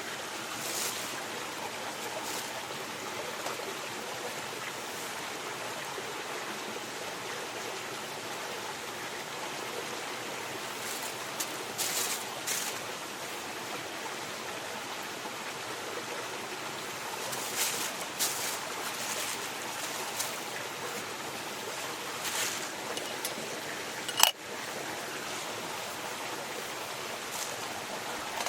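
Mountain stream flowing steadily. A few short clicks and snaps sound over it, the sharpest about three-quarters of the way through.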